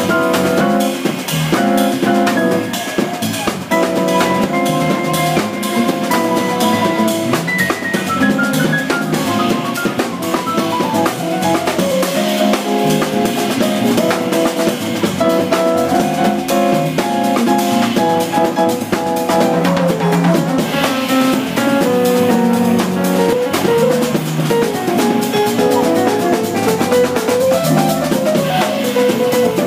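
Live jazz trio of electric keyboard, electric bass guitar and drum kit playing an instrumental piece, with busy drumming including rimshots. About ten seconds in there is a long falling run of notes.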